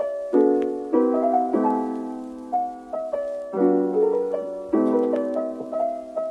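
Background piano music: soft chords struck every second or so, each one ringing and fading.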